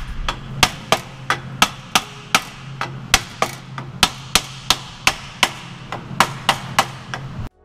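Rubber mallet striking a stainless steel exhaust X-pipe in a steady run of blows, about two and a half a second, to seat it onto the pipes, over a low steady hum. The blows stop abruptly near the end.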